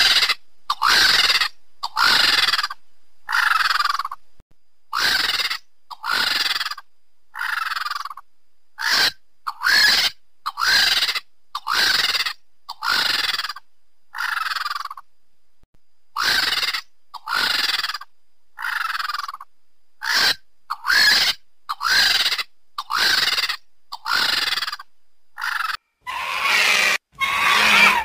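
Vulture calling: a run of short cries, about one a second, each with a quick bend in pitch. Near the end the cries come closer together and run into one another.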